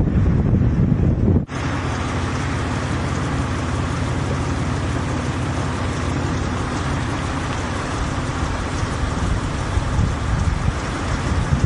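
Strong wind from a nearby tornado blasting across the microphone: heavy, low, rumbling buffeting at first, then, after a sudden brief drop about a second and a half in, a steady rushing hiss.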